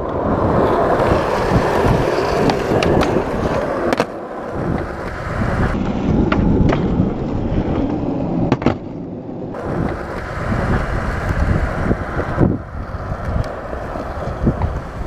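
Skateboard wheels rolling on a concrete skatepark, with a few sharp clacks as the board is popped into tricks and landed.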